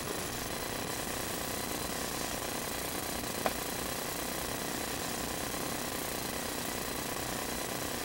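A motor running steadily, an even mechanical noise with a faint hum, with a single sharp click about three and a half seconds in.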